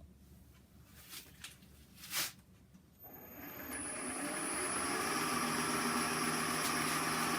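A few light clicks, then about three seconds in a Oneway 2436 wood lathe's motor starts and spins up over a couple of seconds to a steady hum with a high whine, running on at speed.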